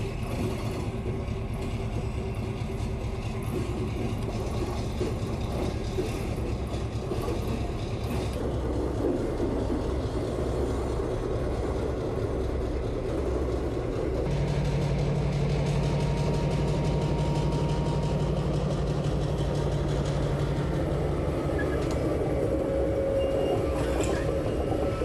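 Diesel switcher locomotives running under load as they haul a heavy rail transporter along the track: a steady low engine drone with wheel and rail rattle. About halfway through the engine note grows louder into a steady hum for several seconds.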